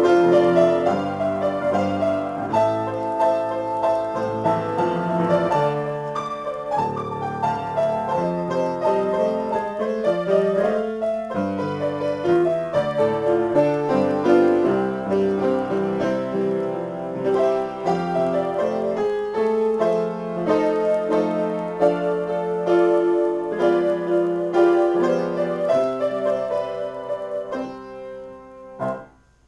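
Upright piano played in an improvised piece, with running notes and chords in both hands. The sound dies away near the end.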